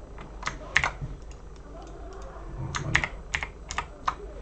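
Computer keyboard keystrokes: about eight separate clicks in two short groups, the first around a second in and the second spread over the last second and a half.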